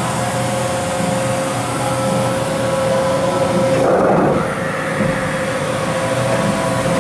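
Makino a51nx CNC horizontal machining center running: a steady spindle whine over the hiss of coolant spray inside the enclosure. About four seconds in, the hiss briefly drops away.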